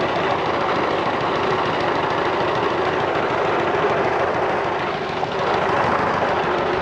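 Mini rice huller driven by a diesel power-tiller engine, running at full speed while grain feeds through and milled rice pours out of the chute. It makes a loud, steady mechanical din, with a brief dip in loudness about five seconds in.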